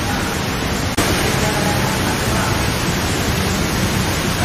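Steady outdoor background noise, an even hiss with faint voices under it, broken by a sharp click about a second in.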